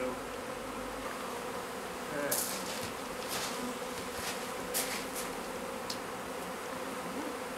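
Honey bees buzzing in numbers around open hives, a steady hum: a colony stirred up by the taking of its honey frames. A few short knocks and scrapes come through from about two seconds in.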